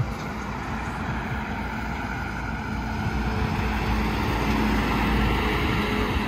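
Diesel semi-truck pulling a pneumatic dry-bulk tanker trailer approaching and passing close by. Its engine and tyres grow steadily louder and are loudest about five seconds in.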